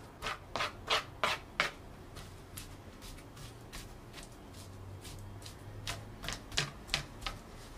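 Plastic spoon mashing and scraping minced garlic against a plastic cutting board: short scraping strokes, about three a second, in two runs with a lull in the middle.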